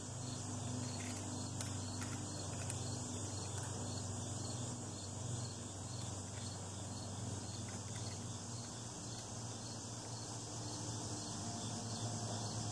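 Outdoor insect chorus, crickets or katydids chirping in an even, pulsing rhythm over a low steady hum.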